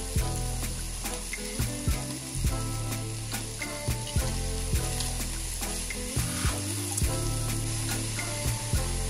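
Diced bacon, onion and mushrooms sizzling in a hot nonstick frying pan as a silicone spatula stirs them.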